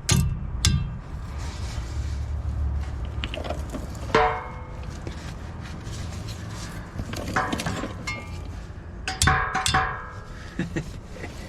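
Hammer blows on a pickup truck's drive shaft, struck to knock it loose: two sharp strikes right at the start, then several ringing metallic clanks about four, seven and nine seconds in.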